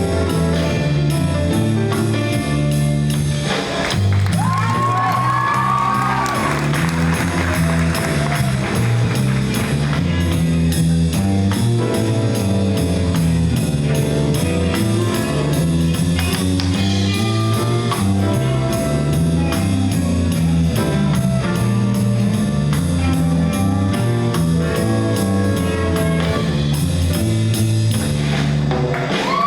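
A school jazz band playing, with a bass line that walks from note to note under guitar and drum kit. A higher line slides up into a held note about four seconds in and again at the end.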